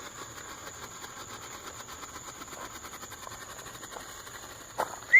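Small consumer ground firework burning with a steady hiss and fine, rapid crackling.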